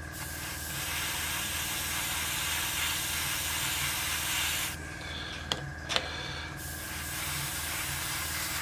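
Airbrush spraying primer: a steady hiss of air and paint for about four and a half seconds, then a short pause with two light clicks, then spraying again for the last two seconds.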